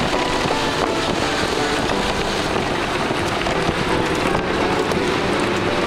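Steady road and engine noise of a moving vehicle, heard from inside it.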